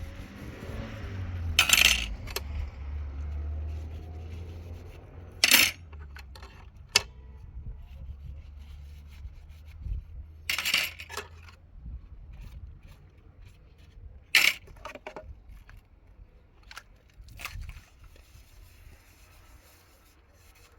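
Sharp clinks and knocks of small hard objects being handled, about five loud ones several seconds apart with lighter ticks between, over a low hum in the first few seconds.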